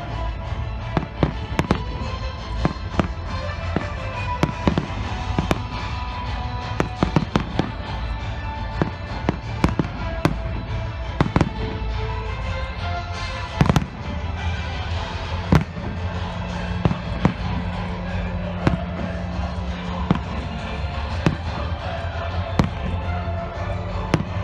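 Aerial fireworks shells bursting in a long, irregular run of sharp bangs, the loudest two about halfway through, with music playing underneath.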